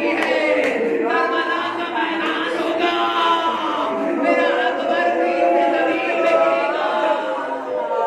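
Men's voices chanting together in a sustained, melodic recitation, with long held notes and no spoken words.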